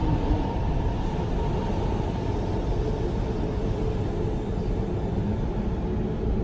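BART train running in an underground tunnel: a steady, loud low noise that holds without a break.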